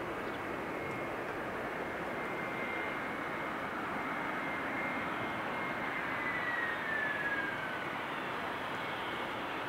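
Jet airliner's engines running with a steady rush and a high whine, which falls in pitch about six seconds in.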